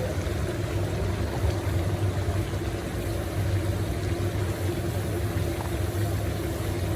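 A steady mechanical drone: a constant low hum with a fixed higher tone over a hiss, unchanging throughout.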